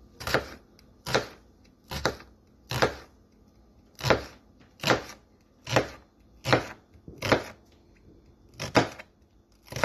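Kitchen knife cutting down through an onion onto a cutting board, about eleven strokes at a slow, even pace. Each cut is a short scraping crunch, which the cook takes as a sign the knife is dull and needs sharpening.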